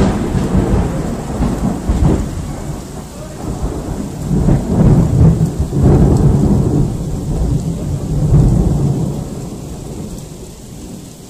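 Loud, close thunder: a long rumble with crackling cracks that swells twice and fades near the end, with steady rain underneath.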